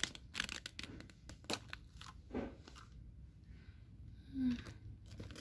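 Crisp clicks and crinkles of a thin plastic drink cup and its clear dome lid being handled. A brief low hum of a voice comes about four and a half seconds in.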